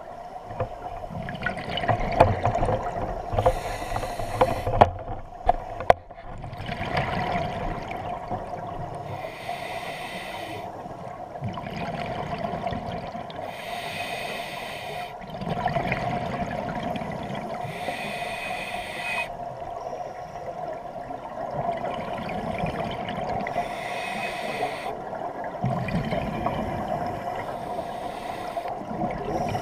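Scuba diver breathing through a regulator underwater: a hiss on each inhale, roughly every five seconds, with low gurgling exhaust bubbles after some of them, over a steady hum.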